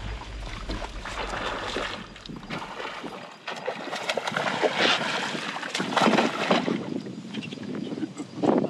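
Wind on the microphone and water splashing around a small fishing boat, with a few louder splashes in the second half. A low, pulsing music beat cuts out about three seconds in.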